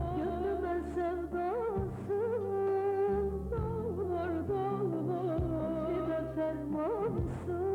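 Turkish pop-folk song: a woman sings a wavering, ornamented melody over a band with steady bass notes.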